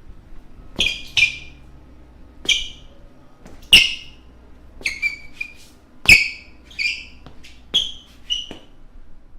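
Basketball shoes squeaking on a court floor: about a dozen short, sharp, high-pitched squeaks in an irregular rhythm, roughly one or two a second.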